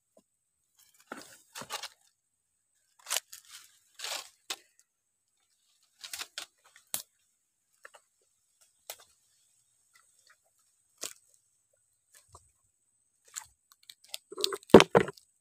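Dry leaves, grass and twigs crunching and crackling in short scattered bursts, with a louder cluster of crunches and thumps near the end.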